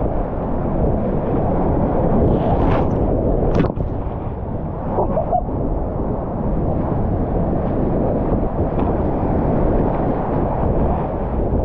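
Rushing whitewater of a river in high flood, a steady loud roar, with a couple of sharp splashes about three seconds in.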